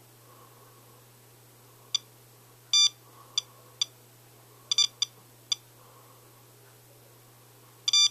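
SOEKS radiation dosimeter chirping once for each radiation count it detects. The short electronic beeps come at irregular intervals, sometimes two or three in quick succession. The meter reads a rain sample at about four times background.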